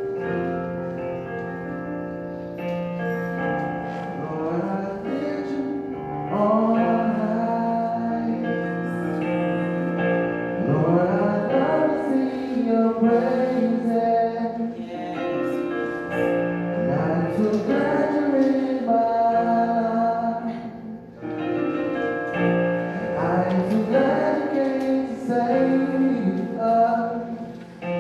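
Gospel worship song: held accompaniment chords, with a man and a woman singing a melody that comes in a few seconds in.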